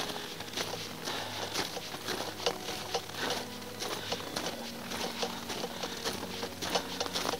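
Footsteps crunching on packed snow from a hiker walking in microspikes with trekking poles, at a steady pace of about two steps a second.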